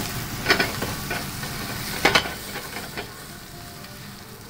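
Diced potato, ginger, garlic and green chilies frying in oil in a stainless steel pot, a steady sizzle. The pot is being stirred, with a few sharp scrapes or knocks against the metal in the first three seconds, and the sizzle is quieter after that.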